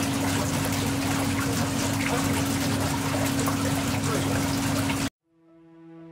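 Water rushing and spattering over a car windshield, a dense hiss with a steady low hum beneath. It cuts off suddenly about five seconds in, and a soft held synth chord begins to fade in.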